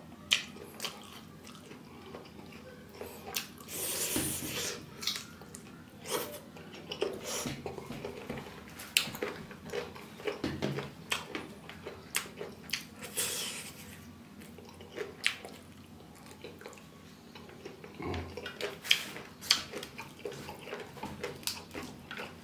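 Eating sounds: chewing and mouth clicks, with fingers working rice on a steel plate and some crunching of fresh green stalks. Many short sharp clicks are scattered throughout, with a couple of longer noisy crunching stretches.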